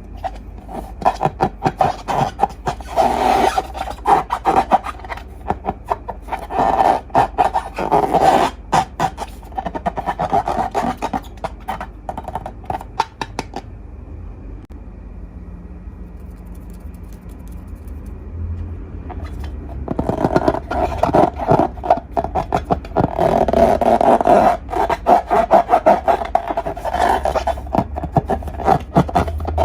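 Slime and long balloons being squeezed and rubbed by hand, giving dense crackling, squishing and rubbing sounds. Two long stretches of handling with a quieter pause between them, about halfway through.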